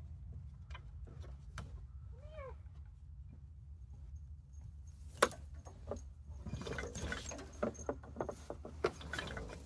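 A dog gives one short whine about two seconds in. From about halfway, synthetic winch rope is pulled and worked loose from the winch drum by hand: rustling and many small clicks, with one sharp click, the loudest sound.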